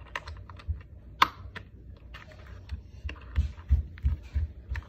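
Small plastic LEGO bricks clicking and tapping as they are handled and pressed together, with one sharper click about a second in. A few dull knocks come between about three and four and a half seconds in.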